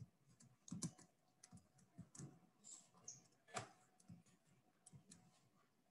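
Faint, irregular computer keyboard keystrokes and mouse clicks, about a dozen spread over a few seconds, the loudest about three and a half seconds in.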